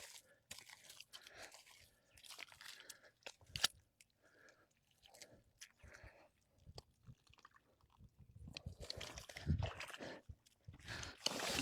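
Irregular crunching and scraping of hands digging into the mud and grass of a rice-paddy bank at an eel hole. The sounds are faint at first and grow busier and louder in the last few seconds, with a few dull thumps.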